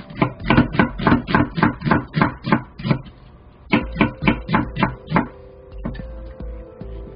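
Chef's knife slicing an onion on a wooden cutting board: quick chops against the board, about four a second, in two runs with a short pause between them, fading to lighter taps near the end.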